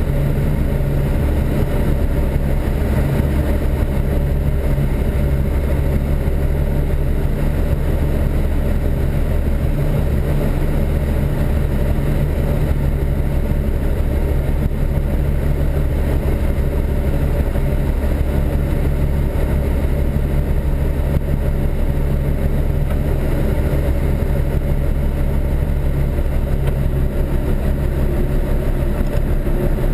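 Rotax 912 four-cylinder engine and propeller of a Pipistrel Virus Short Wing 100 light aircraft running at a steady drone, heard from inside the cockpit during final approach and landing.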